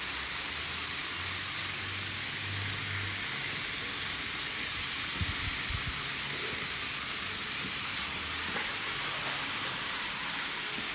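Steady, even hiss of background noise, with a few soft low thumps about five to six seconds in.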